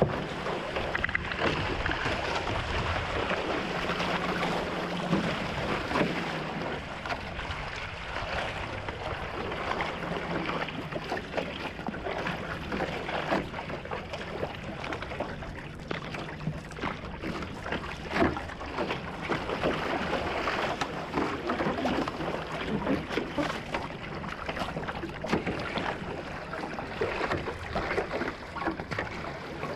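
Paddle strokes splashing repeatedly and water rushing along the hull of a one-person outrigger canoe paddled at a steady cruise, over a constant hiss of wind and sea.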